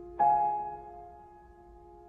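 Slow piano background music: a chord is struck a moment in and left to ring and slowly fade.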